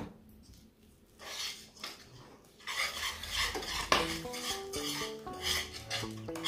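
Wire whisk beating milk into a cocoa, flour and sugar mixture in a nonstick saucepan for chocolate custard: rapid scraping and clinking of the wires against the pan, starting faintly about a second in and getting busier from about three seconds. Light background music with plucked notes joins about four seconds in.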